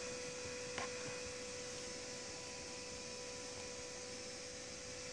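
A steady hum, one even tone with a fainter higher one above it, over a soft hiss, with a faint tick a little under a second in.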